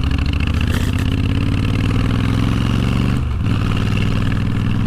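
Honda VTX1300 V-twin motorcycle engine pulling under acceleration, its pitch rising for about three seconds, then dropping briefly at a gear change a little past three seconds in before pulling on steadily.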